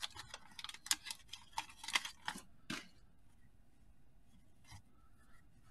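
Wax-paper wrapper of a card pack being peeled and torn open, crinkling and crackling. The wax seal is heavy, so the paper comes apart in many small cracks. About halfway in it goes quiet, apart from one soft tap near the end.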